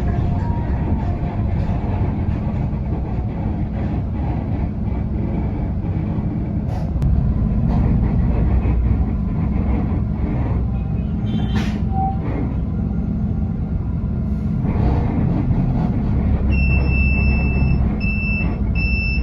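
TransJakarta city bus heard from inside, its engine and running gear giving a steady low rumble while it drives. Near the end a high-pitched electronic beeping starts, about two beeps a second.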